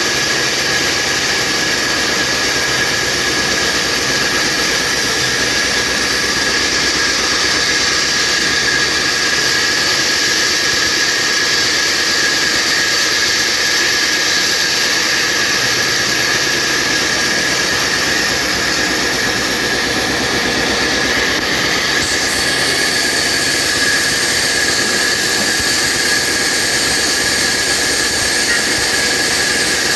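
Horizontal band sawmill running steadily, its blade giving a continuous high whine over a loud, even mechanical noise.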